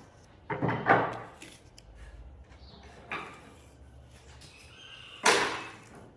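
Workshop handling noise, most likely wood being moved: three short knocks, a double one about half a second in, a smaller one about three seconds in, and the loudest about five seconds in.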